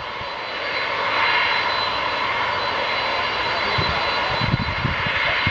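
Boeing 747-400F freighter's four turbofan engines running as it taxis: a steady jet rush with a thin high whine over it. Irregular low thumps come in near the end.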